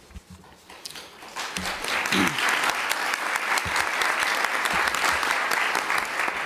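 Audience applauding: scattered claps build over the first second and a half into steady applause from a room full of people.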